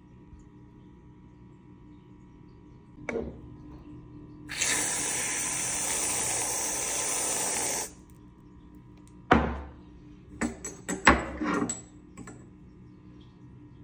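Aerosol can of whipped cream spraying: a steady hiss lasting about three seconds that cuts off suddenly. A click comes shortly before it, and a handful of sharp knocks come after it, the loudest sounds in the stretch.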